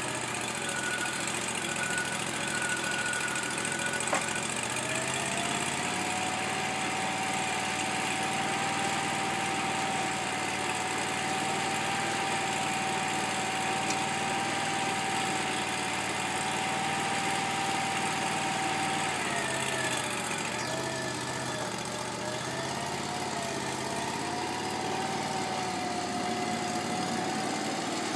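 Engine of a Wood-Mizer LT40 portable sawmill idling steadily while the blade is not cutting, with a thin steady whine over it that drops in pitch about four seconds in and wavers briefly about two-thirds of the way through. There is a single click about four seconds in.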